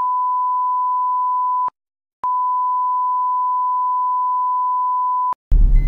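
A steady, pure censor bleep tone laid over the audio, which it replaces entirely: it cuts off about a second and a half in, leaves half a second of dead silence, then sounds again for about three seconds. Car cabin and road noise comes back just before the end.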